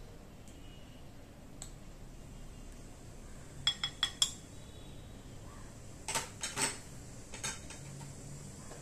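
A metal spoon clinking against a glass bowl as paste is tapped off it: a quick group of taps about four seconds in, and another about six seconds in.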